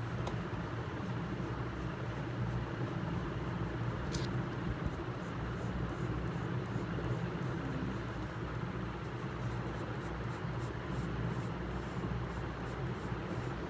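Graphite pencil scratching on paper in quick repeated strokes as the edge of a drawn circle is gone over and shaded. The strokes come thicker in the second half, over a steady background hum.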